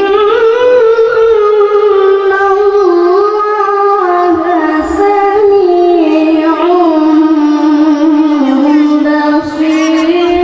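A boy qari reciting the Quran in melodic tilawah style into a microphone. He holds one long, ornamented phrase that steps slowly in pitch and drifts lower near the end.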